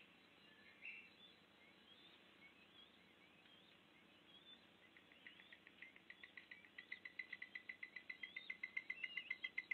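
Faint forest ambience with scattered short bird chirps, then from about halfway a fast, evenly repeated high call, about five pulses a second, that grows steadily louder.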